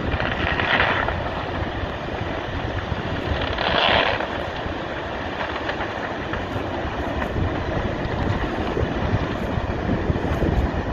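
Steady low rumble of a landslide pouring earth and debris into the sea, mixed with wind buffeting the microphone; two louder rushing swells come about a second in and again at about four seconds.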